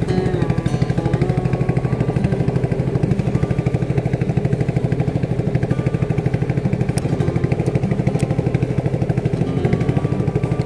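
Small boat engine running steadily at a constant speed, with a rapid, even pulsing beat.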